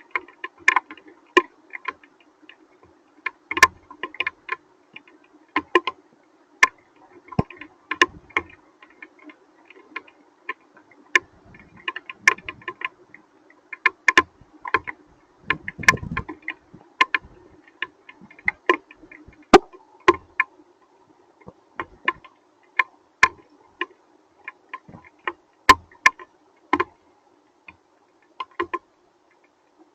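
Hailstones striking a hard surface: irregular sharp ticks and knocks, a few each second, some much louder than others, with a dull low thud about sixteen seconds in.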